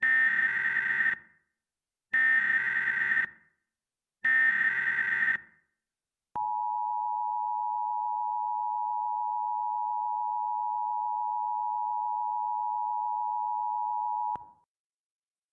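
Emergency Alert System tones: three one-second bursts of the shrill, buzzing SAME header data, about a second apart. Then the steady two-tone EAS attention signal holds for about eight seconds and cuts off abruptly, announcing an alert message.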